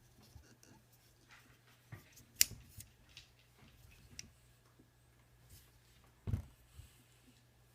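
Handling noise from a small flexible tripod being adjusted: scattered small clicks and rustles, a sharp click about two and a half seconds in and a dull thump about six seconds in, over a faint steady low hum.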